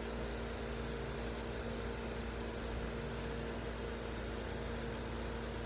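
Steady background hum with an even hiss, from an appliance or fan running in the room, with no distinct events.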